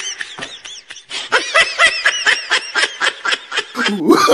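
Laughter in quick repeated 'ha' pulses, about six a second; it fades briefly about a second in, then comes back stronger.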